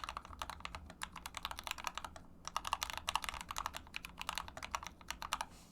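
Typing on a GMMK Compact keyboard with Akko CS Starfish switches lubed with Krytox 205g0, in a foam-filled case: a fast run of keystroke clacks with a short pause a little over two seconds in, stopping just before the end.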